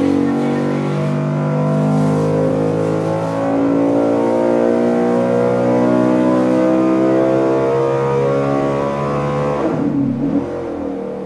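Carbureted Ford NASCAR V8 racing engine making a full-throttle dyno pull under load, revving up from about 5,400 to about 8,500 rpm. About ten seconds in the throttle shuts, the revs fall away and the sound drops off.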